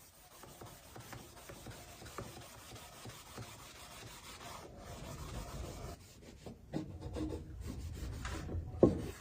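Wood rubbing and scraping against wood, with scattered light clicks and a sharper knock just before the end.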